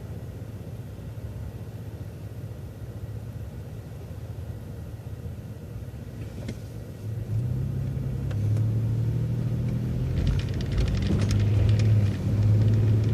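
City transit bus driving, heard from on board: a steady engine and road rumble that grows louder about seven seconds in with a strong low drone as the engine takes load. Light rattling clicks come in near the end.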